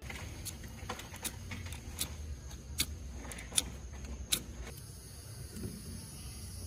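Ferro rod scraped hard with a metal striker over fire-starter tinder: about eight quick, sharp strikes in four seconds, throwing sparks to light a campfire, then they stop.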